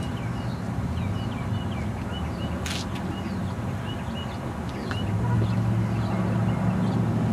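Outdoor ambience: small birds chirping in short, repeated notes over a steady low rumble, which grows louder about five seconds in. A brief hiss sounds about three seconds in.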